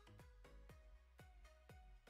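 Faint electronic background music with a steady beat of about two drum hits a second, playing under a countdown timer.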